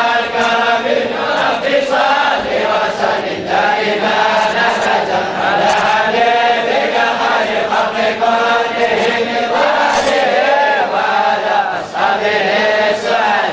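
A group of voices chanting together in unison, a continuous melodic religious chant.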